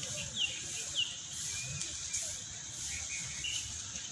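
Birds calling: quick, falling chirps, three in the first second and a half and a few fainter ones later, over steady outdoor background noise with a constant high hiss.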